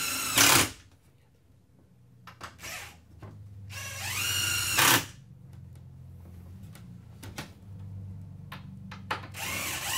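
Cordless drill driving long wood screws into a wooden planter rail. The motor whines up in pitch as each screw goes in, with a short louder burst as the screw seats. There are three runs: one ending just after the start, one about four seconds in, and another starting near the end.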